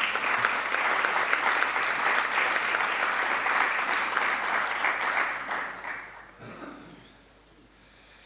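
Audience applause: many people clapping steadily, fading out about six seconds in to quiet room tone.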